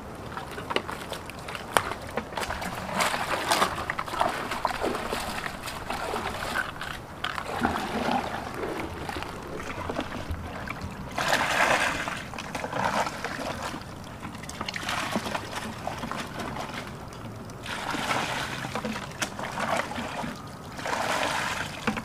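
Water splashing and sloshing in uneven bursts, with trickling in between, as mud crabs are rinsed.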